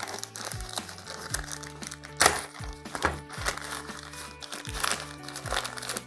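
Plastic delivery packet crinkling and crackling as it is torn open and crumpled by hand, with the sharpest crackle about two seconds in. Background music with a steady beat plays under it.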